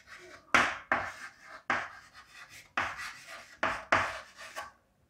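Handwriting: about eight quick, scratchy strokes of a pen or marker on a writing surface, each starting sharply and fading, with short pauses between.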